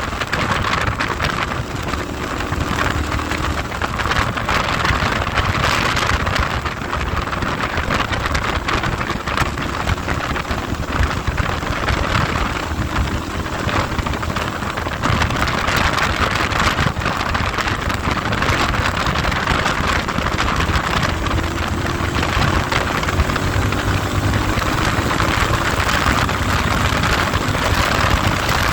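Heavy wind noise on the microphone of a moving vehicle, steady and loud, with an engine running underneath whose pitch rises briefly a few times.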